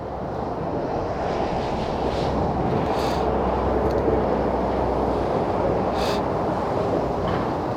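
Heavy trucks running on an expressway: a steady traffic rumble that swells over the first couple of seconds and then holds. A couple of short ticks sound over it.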